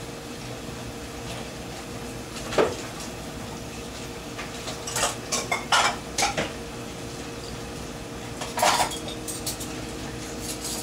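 Walk-behind snowblower engine running steadily at a constant pitch. Sharp scraping and rattling bursts break in a few seconds in, as a cluster in the middle, and once more near the end.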